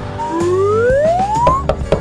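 Cartoon background music with light percussive ticks. Over it, a single pitched sound effect glides slowly upward for about a second and a half.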